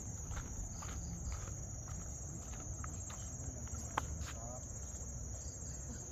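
Steady high-pitched drone of insects such as crickets or cicadas, with the walker's footsteps as faint clicks and a sharp click about four seconds in.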